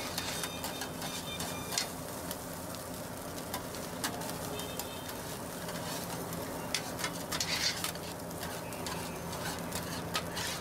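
Fried rice being stir-fried on a flat griddle: a spatula scraping and clacking against the hot plate in quick, irregular strokes over a steady sizzle.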